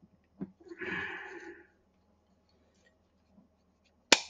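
A soft rustle about a second long, then near the end a single sharp tap: a piece of wood knocking on a Colt 1911 pistol to seat a part during reassembly, the first of a series of taps.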